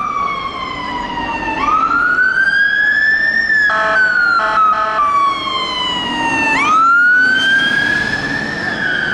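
London Fire Brigade Mercedes-Benz Atego fire engine siren on a slow wail, each cycle rising quickly, then falling slowly over a few seconds, as the engine passes close by. About four seconds in, a horn sounds in a few short blasts over the siren.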